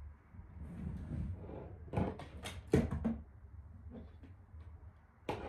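A few sharp knocks and clatters of things being handled, bunched about two to three seconds in, with the loudest just before three seconds and one more near the end, after some rustling.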